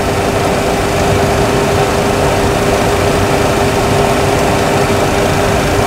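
Steady flight-deck noise of a Boeing 737 Classic on final approach with gear and flaps down: a constant rush of engine and airflow noise with a steady mid-pitched hum running through it.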